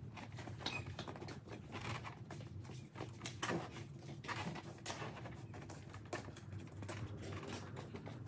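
Handling noise of a fabric motorcycle tail bag being shifted and fastened onto the rear seat: irregular rustles of the bag and its straps with scattered small clicks and knocks.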